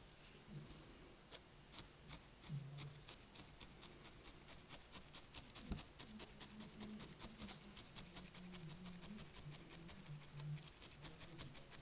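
Felting needle stabbing repeatedly into a ball of white wool roving on a foam pad: quiet, quick, regular ticks, several a second.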